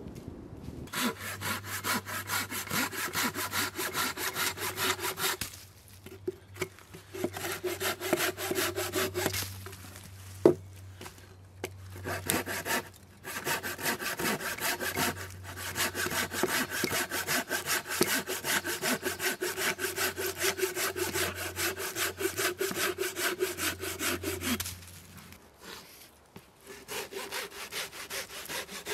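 Bow saw cutting through a dead branch for firewood: quick, even rasping strokes in runs of a few seconds, broken by short pauses, with one sharp knock about ten seconds in.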